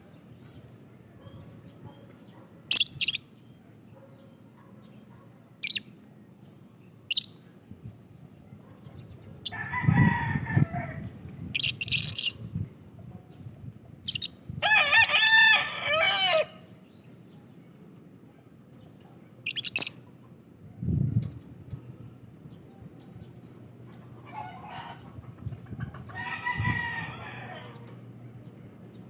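Lovebirds calling: scattered short, shrill chirps, with a few longer, lower calls. The loudest, about a second and a half long, comes around the middle.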